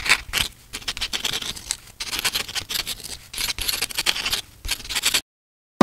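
Writing strokes scratching on paper in quick, irregular bursts as lettering is drawn. They stop suddenly about five seconds in.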